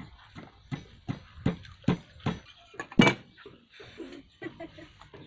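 Knife chopping vegetables on a wooden chopping board: steady knocks about two a second, ending with a heavier chop about three seconds in, then only a few faint knocks.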